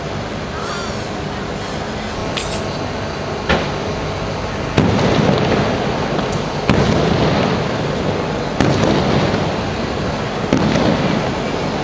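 Aerial firework shells bursting: five sharp bangs, the first about three and a half seconds in and then roughly every two seconds, each trailing off in a long echo.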